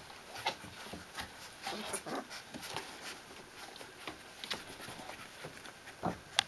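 Thirteen-day-old Newfoundland puppies whimpering softly as they crawl over a fleece blanket, with scattered light scratches and rustles from their paws. Near the end comes a short low call and then a single sharp knock.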